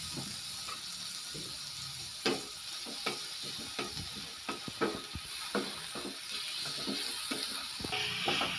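Chicken pieces sizzling in hot oil with a splash of soy sauce in a frying pan, stirred with a wooden spatula that scrapes and knocks against the pan at irregular intervals.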